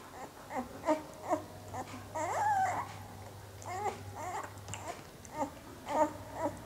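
Very young Indian pariah puppies whimpering: a string of short, high, wavering squeaks and whines, with one longer whine about two seconds in.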